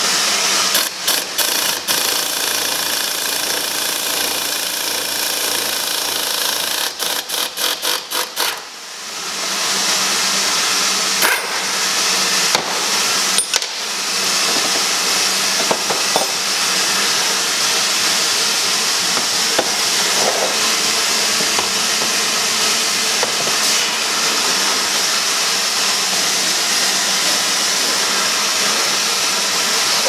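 Metal hand tools clicking and tapping as a wrench turns a bolt-type puller on a water pump pulley, with a quick run of clicks about seven seconds in and a few single clicks later. A steady hiss of shop noise runs underneath.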